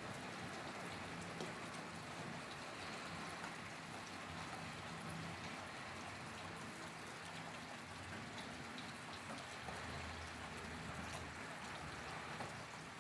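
Steady rainfall, a dense hiss with scattered individual drop ticks hitting a surface.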